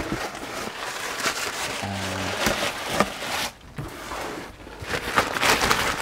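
Plastic packaging bag rustling and crinkling as a wrapped vacuum part is pulled out of its cardboard box, with a short low steady tone about two seconds in.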